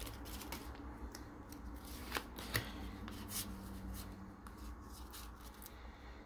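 Pokémon trading cards from a freshly opened Evolutions booster pack sliding and flicking against one another in the hands: faint, scattered soft clicks and rustles.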